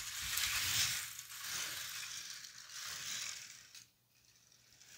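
K'nex roller coaster cars rattling as their plastic wheels roll along the plastic track after being pushed down, fading out after about four seconds, with a softer rattle starting again at the very end.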